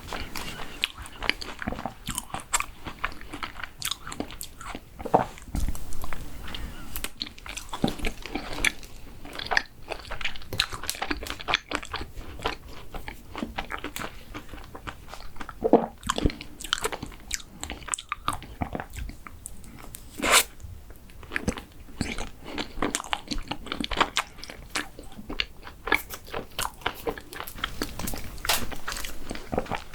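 Close-miked eating sounds: a person biting and chewing crunchy chocolate dessert, with a dense run of crisp crackles and clicks.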